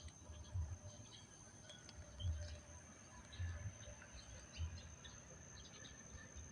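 Faint outdoor ambience: scattered short bird chirps over a steady thin high tone, with irregular low rumbles every second or so.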